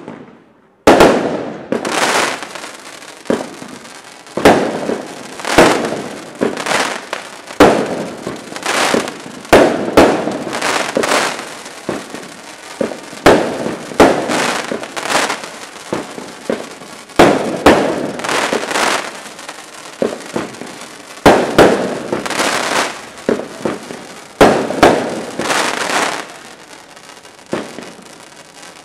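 Rubro Juggling Bouncer fireworks cake firing shot after shot, about one a second. Each shot is a sharp bang followed by a short, fading noise as it rises and bursts into sparks.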